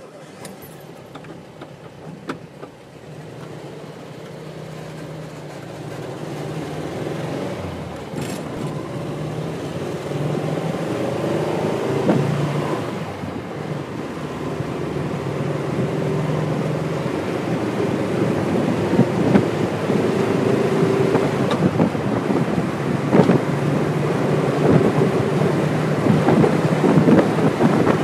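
1973 VW Thing's air-cooled flat-four engine pulling the car up through the gears, its note breaking off and picking up again at each shift. Wind buffeting over the open top grows steadily louder as speed builds.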